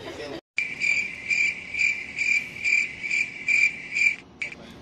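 Cricket chirping, a high trill pulsing about twice a second that starts and stops abruptly: the 'crickets' sound effect edited in to mark an awkward silence.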